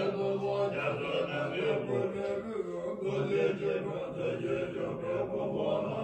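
Tibetan Buddhist monks chanting puja prayers together, men's low voices holding long, steady notes.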